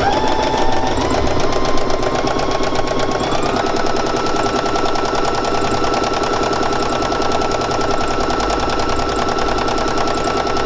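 Domestic sewing machine stitching steadily at speed during free-motion embroidery, the needle running with a fast even clatter over a motor whine that steps up in pitch twice in the first few seconds, then holds steady.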